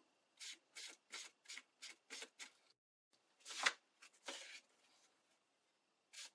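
Flat paintbrush stroking red paint onto folded book-page paper petals: a run of short, soft, scratchy strokes about three a second, then after a pause one louder stroke and a couple more as the paper flower is handled.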